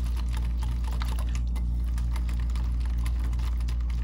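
Wire whisk beating spiced yogurt in a ceramic bowl, its tines clicking rapidly and irregularly against the bowl's sides, over a steady low hum.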